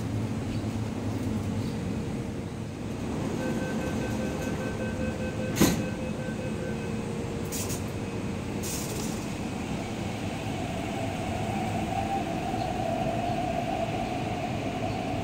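MTR East Rail Line electric train at a platform. Door-closing warning beeps sound for a few seconds, a single sharp knock comes as the doors shut, and there are two short hisses. Then the traction motors' whine rises slightly and holds as the train pulls away, over a steady rumble of train and platform noise.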